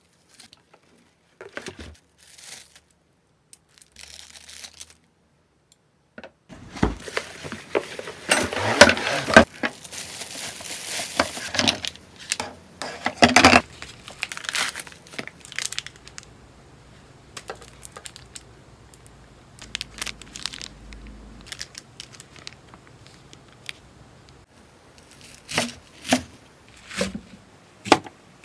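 A taped cardboard parcel being opened and unpacked: tearing and crinkling of tape and plastic packaging, loudest and densest in a stretch in the first half, then softer rustling. Near the end come a few separate knife strokes through an onion onto a wooden cutting board.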